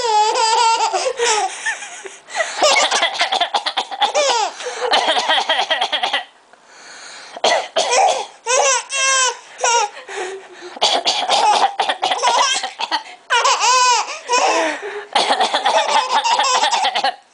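A baby laughing in repeated high-pitched, wavering bouts, set off by a man coughing over and over between and under the laughter. There is a brief lull about six seconds in.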